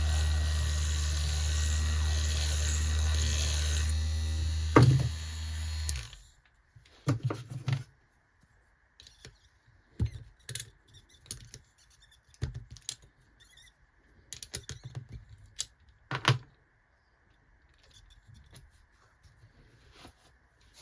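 A loud, steady sound with a strong low hum stops about six seconds in. After it come scattered light clicks, taps and knocks of small tools and metal parts being handled, over a faint steady whine.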